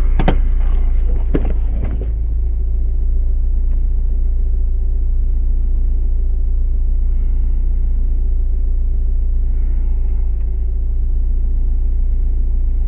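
A loud, steady low hum made of several even tones, with sharp clicks and clattering over it for about the first two seconds.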